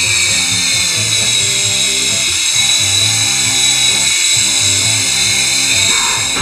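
Small remote-control helicopter's electric motor and rotors running with a steady high-pitched whine, cutting off near the end. Music plays underneath.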